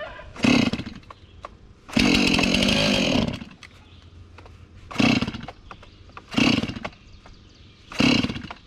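Chainsaw being pull-started again and again, a short burst with each pull roughly every one and a half seconds. It runs for about a second once, near two seconds in, then dies. It is being hard to start.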